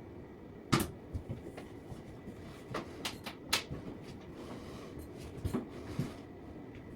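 A series of scattered knocks and clicks from objects being handled and set down in a small room, with the loudest knock about a second in.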